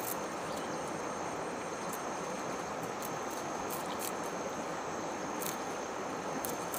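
Steady rush of flowing river water with a continuous high insect drone over it, and a few brief sharp clicks scattered through.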